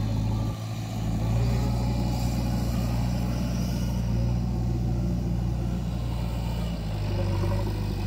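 Mahindra Arjun 555 DI tractor's diesel engine running under load as it pulls a trolley heaped with soil. The engine note is steady, lifting slightly about a second in and easing off near seven seconds.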